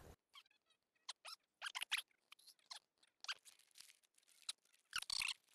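Faint, scattered crackles and squeaks of close handling noise, a few short ones at a time, a little busier near the end.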